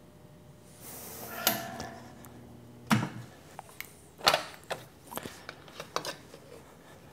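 Steel parts handled on an electromagnetic sheet metal brake. A short sliding scrape comes about a second in, then a series of sharp metallic knocks and clanks as the sheet metal part and the short steel clamping-bar pieces are moved and set down. The loudest knock is about three seconds in.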